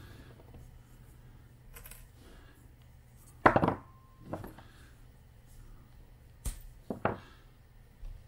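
A few sharp clicks and knocks of small objects handled on a tabletop while thread and a needle are readied for hand sewing. The loudest comes about three and a half seconds in and is followed by a short ring.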